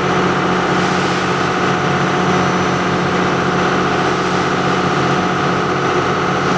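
A tour boat's engine running at a steady pace, an even drone that holds unchanged throughout.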